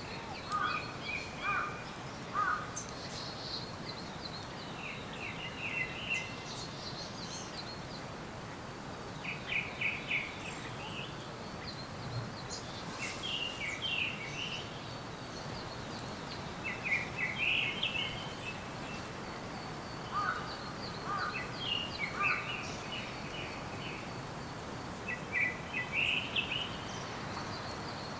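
Songbirds singing in spring woodland: short phrases of quick high notes repeated every few seconds, with a fainter, thinner high trill running behind, over a steady background hiss.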